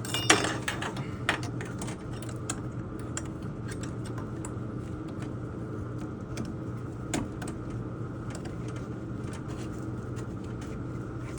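Scattered small metallic clicks and handling noises as a retaining clip and clamp are pushed onto a tankless water heater's pipe fitting, the sharpest click just after the start, over a steady low hum.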